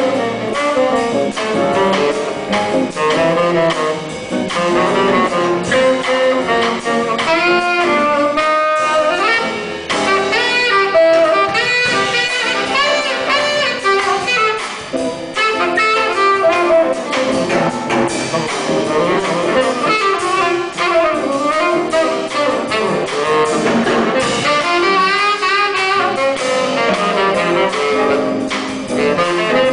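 Small jazz combo playing, with one saxophone carrying the melodic line over guitar, double bass and drums.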